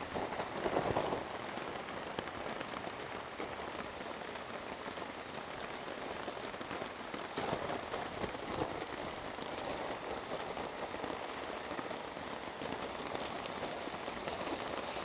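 Steady rain falling on the forest and on the tarp overhead, with a couple of brief louder sounds about a second in and around eight seconds.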